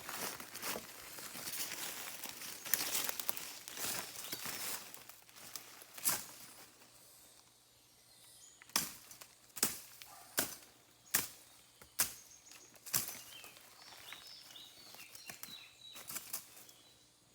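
Rustling and crackling of leaves and vegetation being pushed through or handled, then a run of about six sharp knocks or snaps, each less than a second apart.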